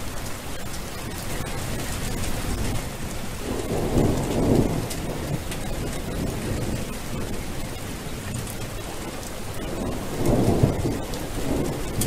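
Steady rain falling, with two low rolls of thunder, one about four seconds in and another near the end.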